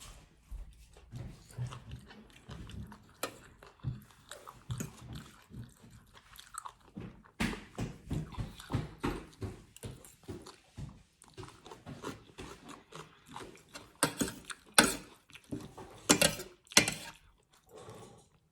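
A person eating close to the microphone, chewing and biting into spicy chicken-feet salad: irregular wet chewing with small crunches. There are a few louder crunches near the end.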